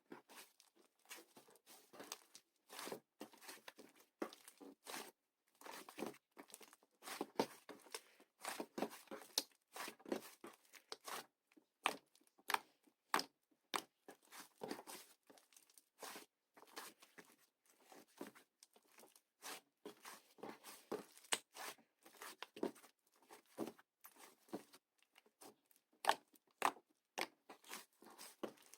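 Fluffy clay slime being squished, stretched and pulled apart by hand: an irregular run of soft crackles and small tearing sounds.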